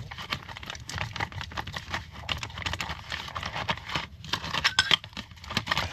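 Irregular clicking, scraping and rattling as rusted, grimy outboard reed-plate parts are handled and worked clean by hand.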